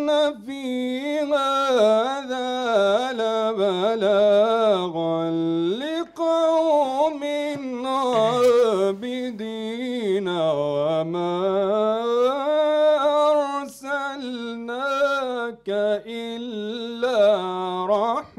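A male Quran reciter chanting in the melodic mujawwad style, one voice drawing out long ornamented melismas that rise and fall in pitch, with short breaks about six seconds in and again near fifteen seconds.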